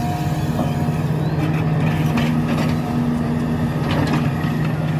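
Hitachi crawler excavator's diesel engine running steadily under load as it swings and works its bucket, with earth spilling into a dump truck's bed about four seconds in.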